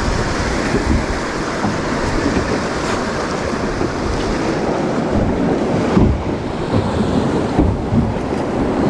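Fast river water rushing past a drift boat riding a riffle, with wind buffeting the microphone and a few low thumps.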